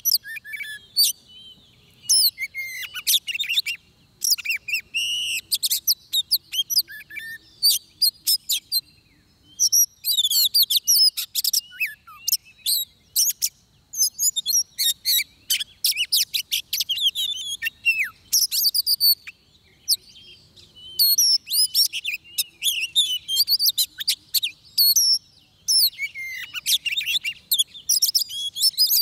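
Oriental magpie-robin singing: rapid, varied high whistles and chirps delivered in phrases of a few seconds with short pauses between them.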